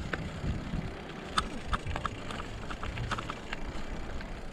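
Bicycle riding on a gravel road: a steady low rumble from the tyres, with irregular small clicks and rattles from stones and the bike.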